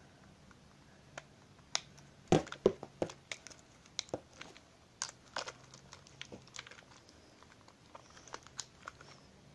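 Irregular small clicks and rattles of a toy 1:43-scale RC rally car's plastic body being handled while its battery compartment is unscrewed and opened. A cluster of louder clicks comes about two to three seconds in.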